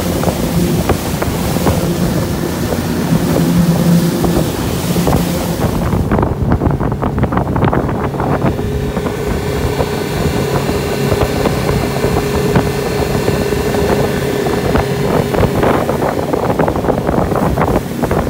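Yamaha outboard motor running steadily at speed as the boat planes, over the rush of the wake and water against the hull. Wind buffets the microphone, and a higher whine from the motor comes in about nine seconds in.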